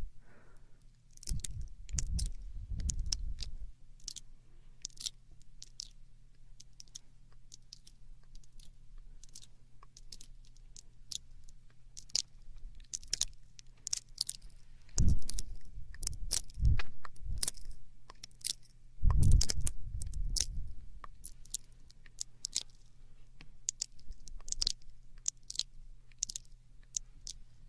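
Close-up ASMR mouth sounds into a binaural microphone: wet clicks and smacks of tongue and lips at an uneven pace, with heavier low thumps in a few clusters, near the start and twice around the middle.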